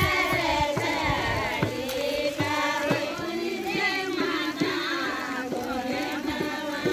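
Voices singing a Kumaoni hudkiya bol paddy-transplanting folk song, with strokes of a hudka hourglass hand drum beneath.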